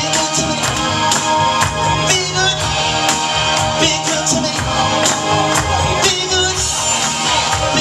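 Upbeat pop-rock song with a steady beat and a singing voice, played loud through PA speakers.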